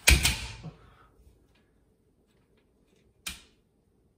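Aluminium telescopic ladder collapsing: a released rung section drops and slams shut onto the one below with a loud metal clack and a quick rattle that dies away within a second. A single lighter click comes about three seconds later.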